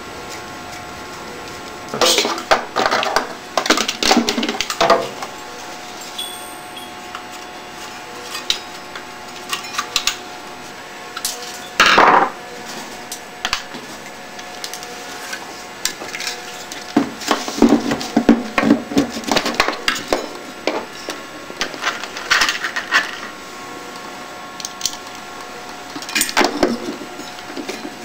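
Irregular knocks, clicks and clatter of parts and tools being handled while a thermoelectric wine cooler is worked on. The sounds come in clusters with short gaps, the sharpest knock about twelve seconds in.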